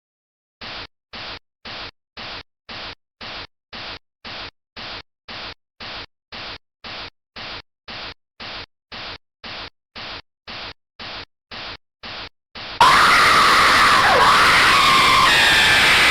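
Alarm sound: a steady run of short static-like bursts, about two a second, then near the end a sudden, much louder blast of harsh noise with shrill wavering tones.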